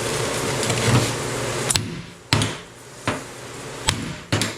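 Steady arc-welding crackle that stops about two seconds in, followed by several sharp hammer blows on steel.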